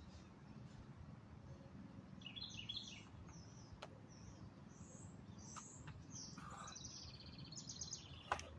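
Birds chirping in short repeated calls over a faint low hum. Near the end comes a short thump as a burpee drops onto gravel.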